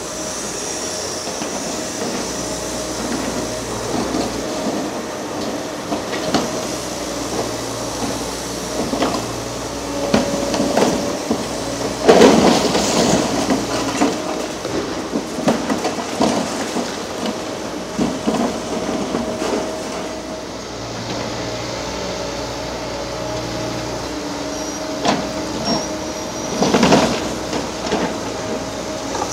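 Demolition excavator at work: its diesel engine and hydraulic whine run steadily while concrete and metal debris cracks, clanks and crashes down over and over, loudest about twelve seconds in and again near the end.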